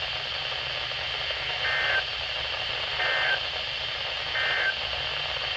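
Three short bursts of the SAME digital code over NOAA Weather Radio, each a brief two-tone warble, about a second and a third apart: the end-of-message signal that closes an alert. A steady radio hiss runs underneath.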